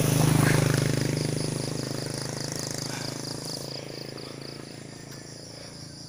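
A motor vehicle's engine hum, loudest about half a second in and then fading away. Over it an insect, likely a cricket, chirps in a fast pulsing trill that stops a little before the end.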